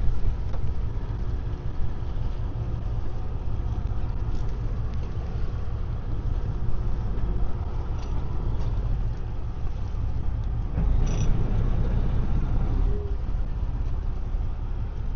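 Fishing boat's engine running steadily with a low hum, with a few faint knocks about eight and eleven seconds in.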